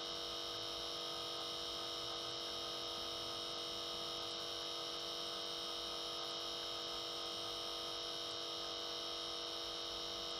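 Steady electrical hum with a high hiss, unchanging throughout, with nothing else sounding: background noise of the recording.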